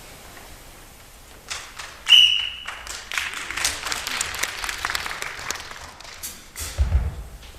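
A short, high whistle-like tone, then a burst of audience clapping lasting a few seconds, with two heavy thumps near the end.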